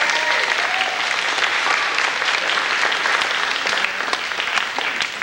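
Audience applauding, a steady crowd of many hands clapping.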